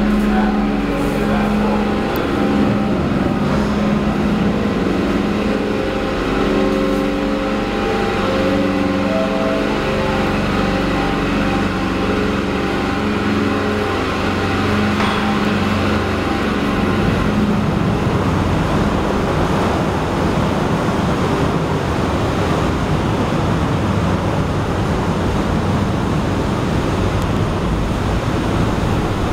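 Loud, steady machinery drone inside a car ferry's enclosed vehicle deck: the ship's engines and deck ventilation. For the first half there is a low hum with several steady tones; from about halfway it gives way to an even rushing noise.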